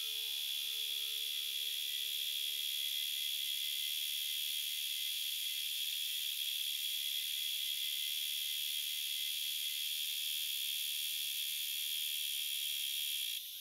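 Dense, steady, high-pitched insect chorus buzzing, while the last held note of the sachaguitarra dies away over the first six seconds. The chorus cuts off suddenly just before the end, leaving a fainter hiss.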